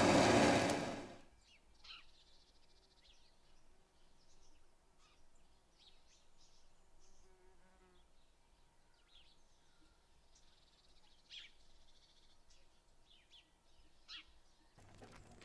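A loud rushing noise cuts off about a second in, leaving faint outdoor ambience with scattered short high chirps.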